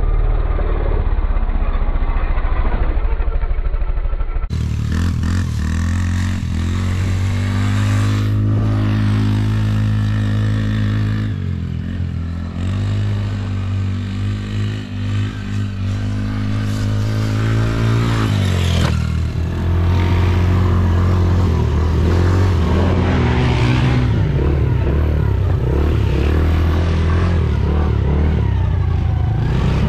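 Yamaha Raptor 90 quad's small four-stroke single-cylinder engine running while ridden. The engine note holds steady, then drops and climbs again several times as the throttle is eased and reopened.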